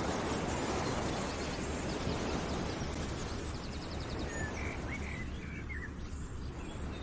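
Steady rushing outdoor ambience with small birds chirping over it: a quick trill about halfway through, then a cluster of short chirps a little later.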